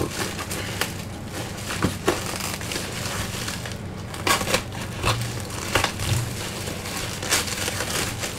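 Shipping packaging being handled and unwrapped, crinkling and crumpling in irregular crackles and rustles as a parcel is opened.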